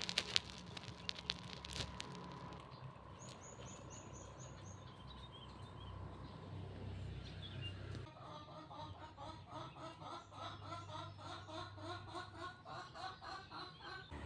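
A frog calling: a run of short, repeated notes, about three or four a second, through the second half. A few sharp clicks come near the start.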